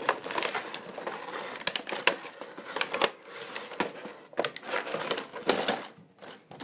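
Thin clear plastic blister tray crackling and clicking as its lid is pried open and handled, a dense run of sharp clicks that thins out near the end.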